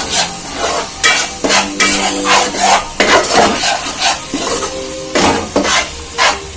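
Onion-tomato masala frying in oil in a pan, sizzling while it is stirred, with repeated scraping strokes of the stirring utensil against the pan about twice a second.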